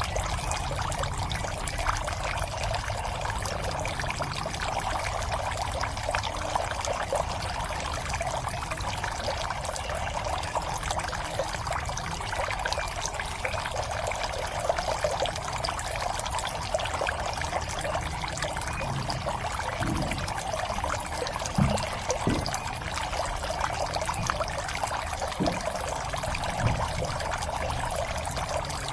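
Water pouring and splashing steadily into a garden pond, a continuous trickling fall. A few brief low thuds come in the last third.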